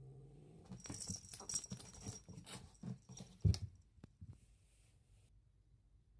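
A cat's low growl, then a brief scuffle between two munchkin cats: paws scrabbling, with thumps on a fabric-covered cat stool and the floor. A heavy thump comes about three and a half seconds in as one cat lands on the floor.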